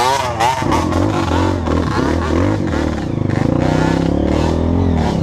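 Dirt bike engines: one revs rapidly up and down until about half a second in, then a steady low-revving engine runs on, growing slightly rougher a few seconds in.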